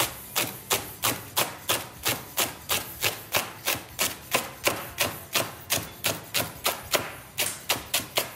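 Chef's knife slicing a leek into rings on a wooden cutting board: a steady run of sharp knocks as the blade meets the wood, about three to four cuts a second.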